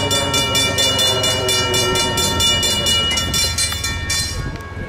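Safetran hybrid electronic crossing bells ringing in rapid, even strokes while the gate arms lower. They cut off about four seconds in, once the gates are down.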